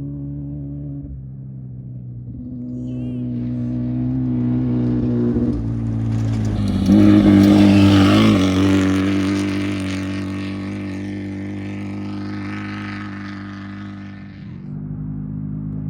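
An off-road race vehicle's engine approaching at speed, passing loudest about seven to eight seconds in with a drop in pitch, then fading away. A steady lower engine hum continues underneath.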